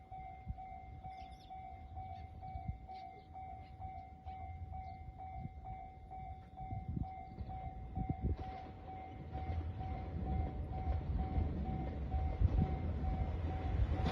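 Japanese railway level crossing alarm ringing on and off in a steady repeating pattern, while the low rumble of an approaching JR 2700 series diesel express train grows louder over the last few seconds.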